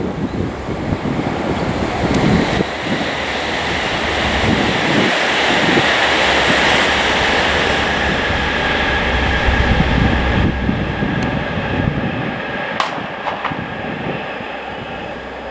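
Wind buffeting the microphone, with a steady rushing mechanical noise beneath it that swells to its loudest about halfway through and then eases; a sudden change near the end and a couple of sharp clicks.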